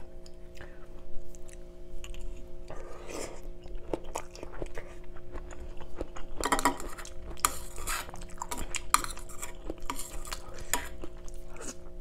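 Someone eating: a metal spoon tapping and scraping in a wooden bowl of curry, heard as scattered short clicks, along with chewing and a few longer noisy stretches.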